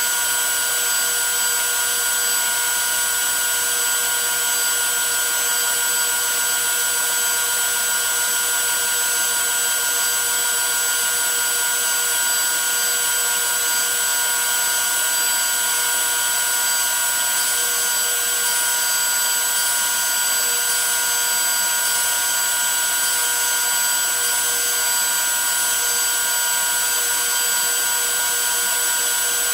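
DeWalt router on a Lowrider2 CNC spinning a 1/8-inch two-flute upcut bit as it mills quarter-inch aluminum plate: a steady high whine over the steady rush of a shop vacuum pulling away the chips.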